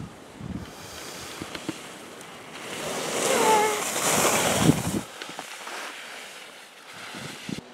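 Skis hissing and scraping over groomed snow while skiing, with wind on the microphone. About two and a half seconds in the rush swells loud for a couple of seconds as a skier carves past close by, then drops back.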